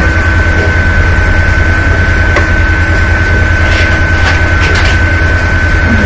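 Steady low hum and a constant thin whine on a phone line whose far end has dropped out, with a few faint clicks and no voice coming through.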